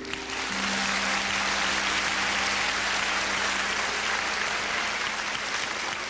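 Audience applauding steadily at the end of a song, with the band's last low note held for about three seconds under the clapping.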